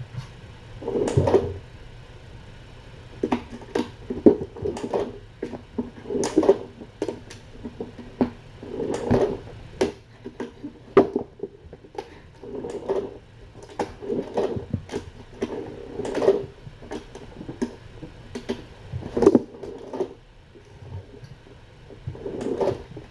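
Irregular thumps, knocks and scrabbling of a cat playing hard, bounding about and batting at things.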